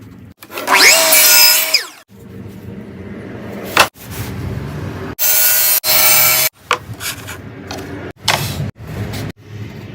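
Power tool cutting wood, heard in short, abruptly cut segments. The loudest parts are a whine that rises, holds and falls about a second in, and another loud cut a little past the middle.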